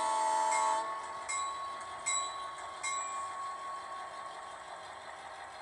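Model locomotive's sound-decoder horn sounding a held multi-note chord that cuts off about a second in, with a locomotive bell ringing about every 0.8 s. The bell strikes fade out after about three seconds.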